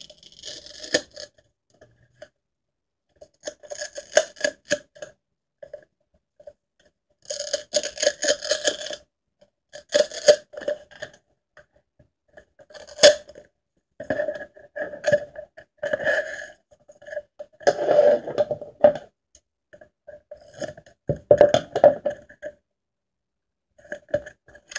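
Decorative tape being pulled off its roll in about a dozen short, crackly pulls of a second or two each, with pauses between, as strips are laid and pressed onto a small plastic box.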